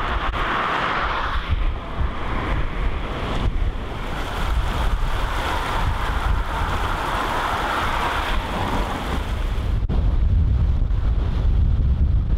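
River in flood rushing and churning, with wind rumbling on the microphone. Just before the end there is a brief break, after which the wind rumble is stronger and the rush of water is fainter.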